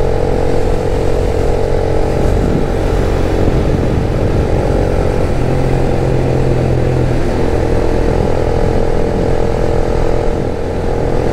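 Motorcycle engine running at a steady cruising speed, heard from the rider's seat; its pitch holds level, with a small shift about halfway through.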